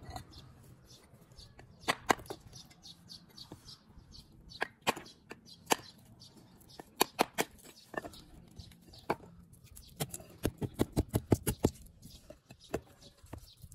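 Sharp, irregular taps and knocks of a hand tool on brick, ending in a quick run of about eight taps in under two seconds.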